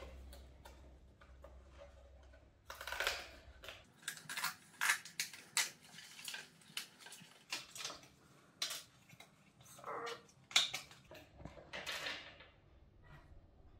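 A phone case and its packaging being unpacked and handled: irregular sharp clicks and taps of hard plastic, with a few short rustles.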